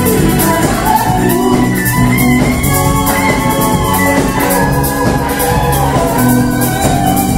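Live band playing an instrumental stretch of a funk-pop song: electric bass line, electric guitar, drum kit with a steady hi-hat pulse, and hand percussion.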